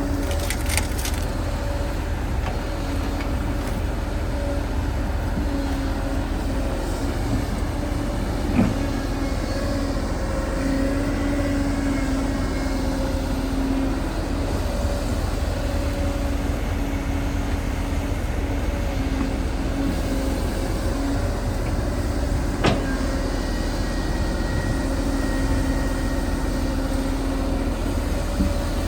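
Excavator's diesel engine running steadily, with a tone that swells and fades over a few seconds at a time. Two sharp knocks, one about nine seconds in and one about twenty-three seconds in.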